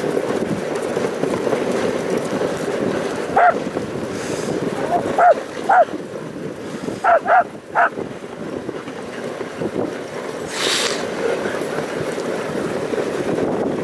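Sled-team huskies giving about six short, high yelps between three and eight seconds in, over the steady rushing noise of the sled running on snow.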